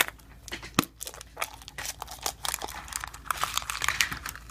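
Surprise egg wrapper being crinkled and torn open by hand, a run of crackling rustles and small clicks with one sharp click about a second in.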